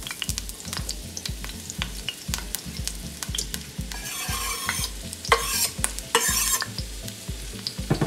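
Sliced mushrooms and onions tumbling off a wooden cutting board into a pan of hot butter and sizzling, with scattered clicks as pieces drop and a knife scrapes the board. Three short bursts of louder sizzle come around the middle.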